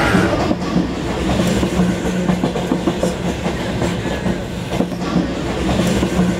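Train running along the rails: a steady low hum under the rumble, with wheels clicking over rail joints.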